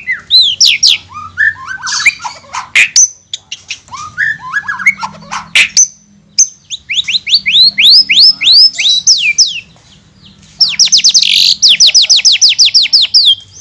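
White-rumped shama singing a loud, varied song of chirps and sweeping whistles, broken by two long runs of quickly repeated notes, about eight a second, the second run starting past the middle after a short pause.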